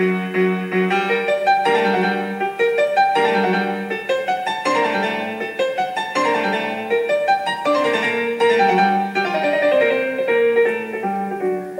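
Solo piano music playing a moving melody of distinct notes over held lower notes.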